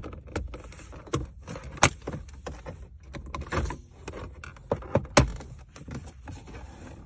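Plastic gear-shifter surround trim in a car's centre console being pried out by hand: a string of clicks, knocks and rattles as its four clips let go, the sharpest snaps about two seconds in and about five seconds in.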